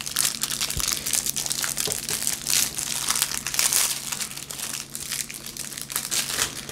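Clear plastic shrink-wrap crinkling and crackling as it is peeled and crumpled off a cardboard sardine box, in an irregular run of sharp crackles.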